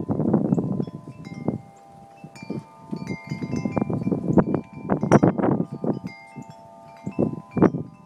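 Wind chimes ringing, several clear tones overlapping and lingering, with repeated gusts of wind rumbling on the microphone, loudest about five seconds in.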